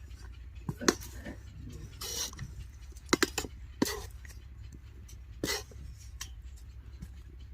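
Scattered sharp clicks and a short scrape from a kadhai (wok) of very hot sand with guavas buried in it, over a steady low hum. The clicks come about one second in, twice about three seconds in, near four seconds and again near five and a half, with the scrape just after two seconds.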